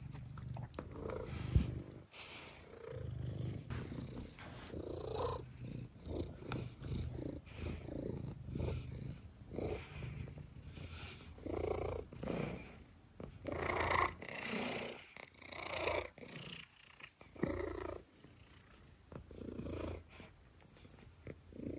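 Domestic long-haired cat purring up close while being stroked, the purr swelling and fading about once a second with its breathing.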